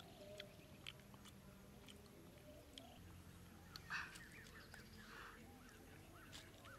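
Near silence with faint scattered clicks and, from about four seconds in, a run of short, faint chirping animal calls.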